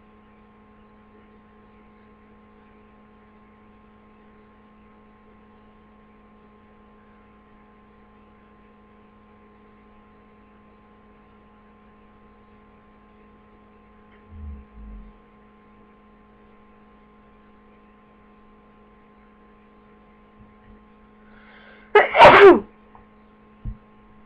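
A person with the flu sneezing once, loudly, near the end, over a steady electrical hum. Two faint low thumps come about two-thirds of the way in.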